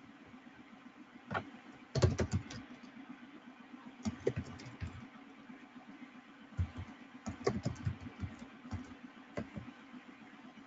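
Keystrokes on a computer keyboard: several quick bursts of typing clicks with short pauses between.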